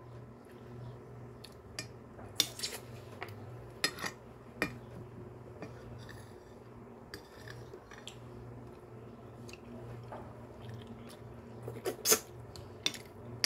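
A metal spoon clinking and scraping on a glass plate every second or two, with a cluster of clinks near the end, amid soft chewing. A low steady hum runs underneath.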